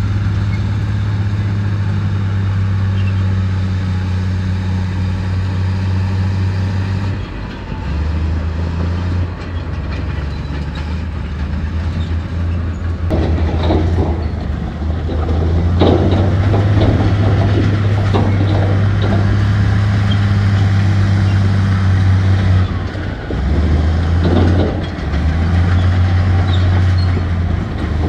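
Crawler bulldozer's diesel engine running with a steady low note that shifts several times as the load changes. Bursts of clattering and scraping from rock and steel come about halfway through and again near the end.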